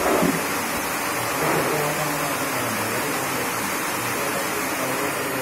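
White pepper making machine running, water pouring through its rotating drum of nylon brushes as the peppercorns are scrubbed of their skins: a steady rushing noise with a faint low machine hum.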